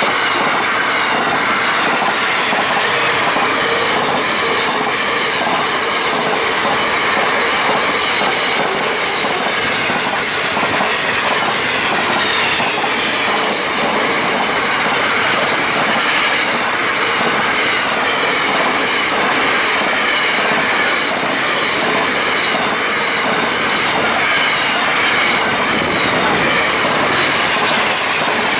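Container freight train wagons passing close by: a steady rolling rumble, with the wheels clicking in a regular rhythm over the rail joints.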